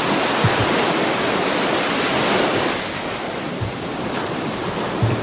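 Ocean surf washing onto the beach, a steady rushing of waves that eases slightly about three seconds in, with a few low thumps of wind on the microphone.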